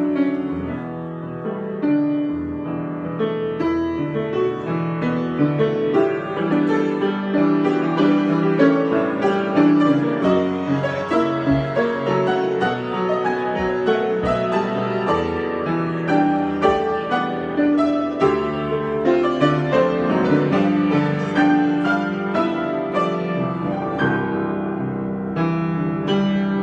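Improvised solo piano playing, a continuous flow of notes with no pauses.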